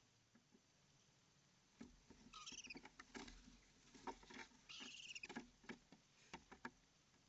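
Owlets scrambling and climbing in a wooden nest box, their talons scratching and clicking on the wood, with two short high-pitched calls that fall in pitch, about two and a half and five seconds in.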